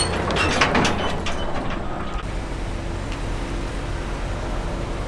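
Pickup truck engine running while it tows a dump trailer over gravel. There are a few knocks and rattles in the first two seconds, then a steady low engine hum.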